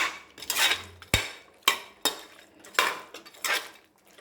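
A metal spoon stirring a thick masala of chicken and ground paste in a metal cooking pot: a series of scrapes and clinks against the pot, roughly one every half second.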